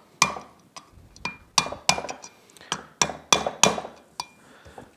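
Hammer tapping a steel bearing driver about eight times at an uneven pace, each blow with a short metallic ring. The blows drive the camshaft bearing all the way down into the Yamaha Raptor 700R's aluminium cylinder head until it seats with zero clearance.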